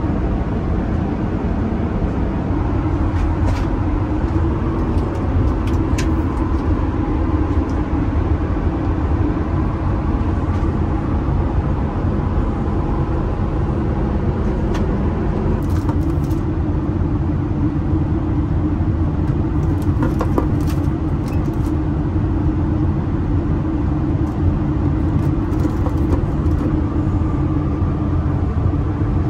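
Steady rumble of an Airbus A350-900's engines and airflow heard inside the economy cabin, with a few faint clicks over it.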